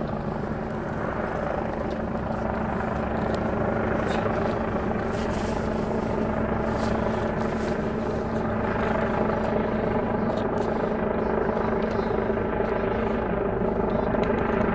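Rescue helicopter flying overhead, its rotor and engine running steadily and growing gradually louder.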